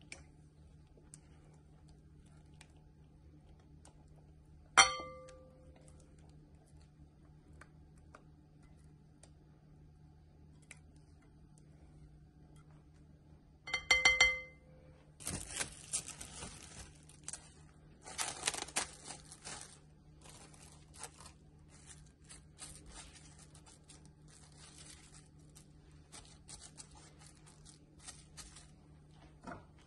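A saucepan clinks against a glass mixing bowl with a short ring about five seconds in, and a similar ringing clink comes around fourteen seconds. After that, plastic cling film crinkles and rustles for most of the rest as it is peeled off a disc of pastry dough.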